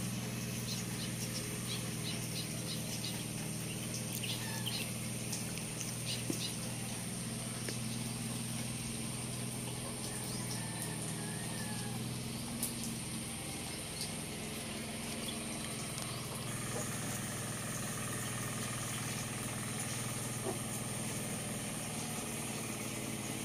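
Steady low machine hum, with faint scattered ticks over it.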